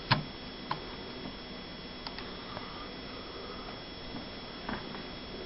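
Quiet indoor room tone: a steady low hiss, with a few faint clicks.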